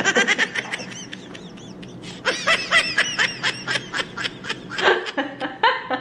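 A woman laughing in rapid, high-pitched bursts: a short bout at the start, then a longer one from about two seconds in.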